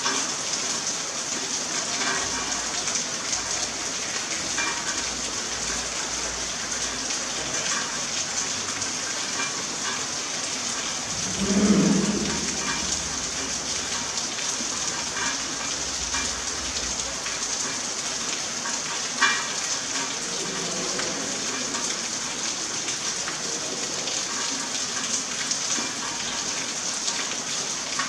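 Rain falling steadily, an even hiss. A brief louder low-pitched sound comes about twelve seconds in, and a sharp click near nineteen seconds.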